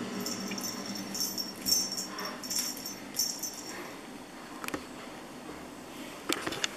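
Small jingle bell on a pompom cat toy jingling in four short shakes over the first few seconds as a kitten bats at it, then a few light clicks and taps.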